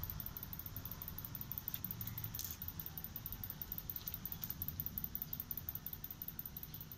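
Faint low rumble with a few light clicks and rattles, the sharpest about two and a half seconds in.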